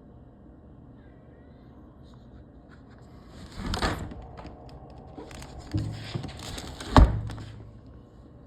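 A window being moved in its frame: scraping and rattling with a few knocks, the loudest about seven seconds in.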